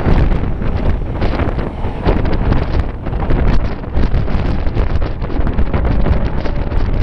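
Wind buffeting the microphone at the open window of a moving passenger train, over the steady rumble of the carriage running on the rails.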